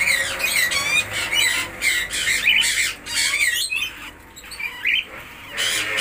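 Parakeet chicks squawking repeatedly, short rasping calls several a second that thin out after about three seconds, with a few more near the end.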